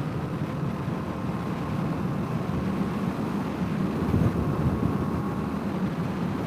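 Honda CRF250L's single-cylinder four-stroke engine running steadily under way, with wind rushing over the helmet-mounted microphone.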